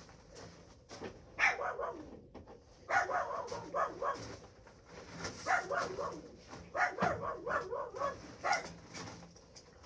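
A dog barking repeatedly in short runs of quick barks, about six runs with pauses between.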